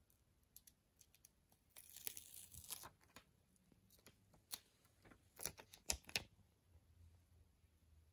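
Faint crackle of a clear plastic sticker label being peeled from its backing sheet and handled onto a jar, a burst of about a second near two seconds in, followed by a few separate sharp clicks.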